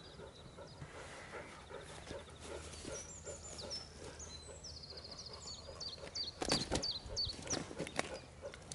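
Songbirds singing with high chirps and trills over a quiet bank. About six and a half seconds in come a few loud knocks and rustles as a carp is handled in a fabric unhooking cradle.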